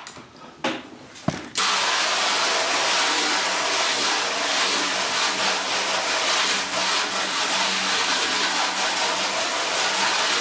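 Water from a garden hose spray nozzle hitting a car's painted panel, a loud steady hiss that starts suddenly about a second and a half in after a couple of soft clicks. The panel is being rinsed to test the water sheeting of a freshly applied ceramic spray sealant.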